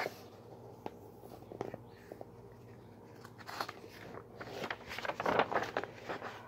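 Picture book being handled and its pages turned: faint paper rustling and crinkling, with a few small clicks at first and busier rustling in the second half.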